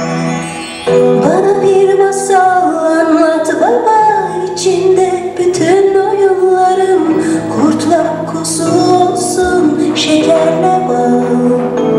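A song with a woman singing a melody over instrumental backing. It comes in suddenly about a second in, after a held instrumental note.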